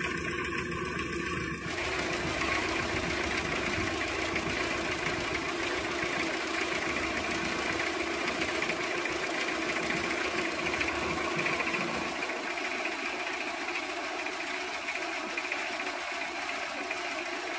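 Toyota 2C four-cylinder diesel engine idling unevenly, with a steady knocking run that does not settle. Its shaking and uneven running are like a misfire, which the owner is checking for unequal diesel delivery from the four injectors.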